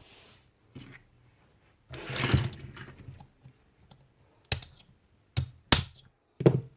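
Metal router parts and hand tools being handled on a bench during disassembly: a rattling scrape with a light metallic ring about two seconds in, then several sharp clicks and knocks.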